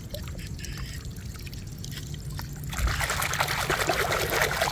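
A few faint clicks as a small toy car is picked up, then, about three seconds in, a hand starts swishing and splashing hard in a plastic tub of foamy water to wash it.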